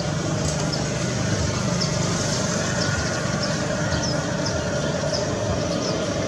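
Airbus A321-200 jet engines running at taxi power as the airliner rolls slowly along the taxiway: a steady low rumble with a steady whining tone over it.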